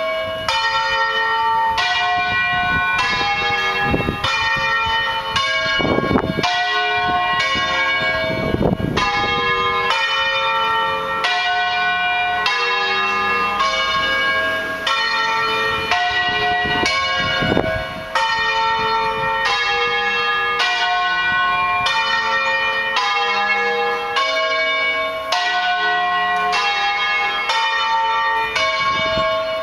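The five tuned church bells of the Basilica di San Francesco, Bologna (notes D, F, G, A, C), swung electrically in the Bolognese 'doppio' style. Strikes from different bells follow one another at a steady pace, roughly one every three-quarters of a second, and their ringing overlaps into a continuous peal.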